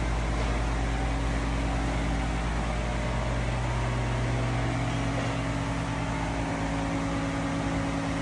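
Steady, unchanging machine hum in a metal fabrication shop: a low drone with a few steady tones under an even hiss.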